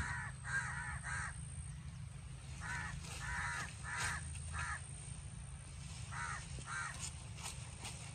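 Crows cawing in three bouts of a few harsh caws each, over a steady low rumble.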